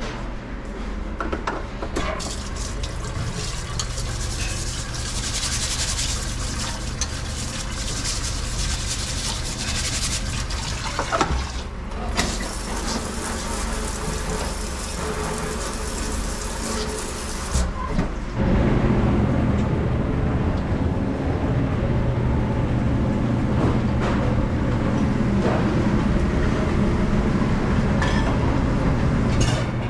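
Restaurant kitchen noise on a breakfast cook line. A steady low hum runs throughout, with a bright hiss, like running water or food sizzling on the griddle, that cuts off sharply just before the halfway point. There are a few knocks of utensils or pans, and the low hum grows louder for the second half.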